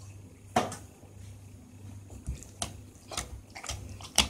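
Rested, stiff wheat-flour dough being punched and kneaded with a wet hand in a glass bowl: a run of wet squelches and sharp slaps, about five of them clearly louder than the rest.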